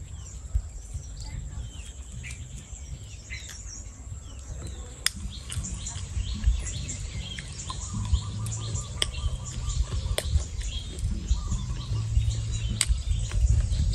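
Birds chirping in short, scattered calls over a low rumble, with a few sharp clicks.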